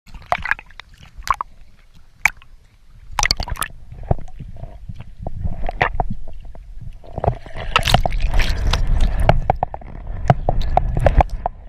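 Water sloshing and gurgling close to the camera, with scattered sharp clicks and knocks over a low rumble that swells in the second half.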